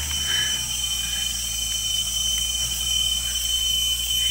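4x4 vehicle's engine running with a steady low hum, under a constant high-pitched whine.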